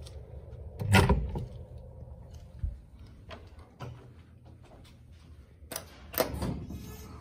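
A fire door's panic exit bar pushed, its latch clunking loudly as the door is opened about a second in. Near the end come a few sharp clicks as the elevator's hall call button is pressed.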